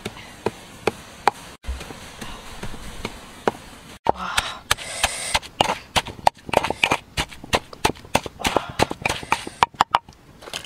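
A series of sharp knocks, spaced out at first, then coming faster and denser about four seconds in, broken by a few brief dropouts.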